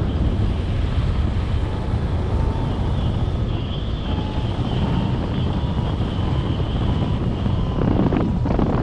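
Steady rush of airflow buffeting the microphone during a paraglider flight.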